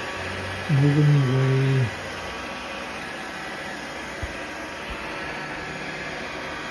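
iRobot Roomba 675 robot vacuum driving around in dock-seeking mode, a steady whir, with two faint low knocks a little after halfway. A short burst of a man's voice comes about a second in.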